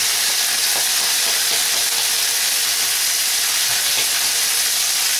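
Chopped red capsicum frying in butter in a frying pan, giving a steady sizzling hiss.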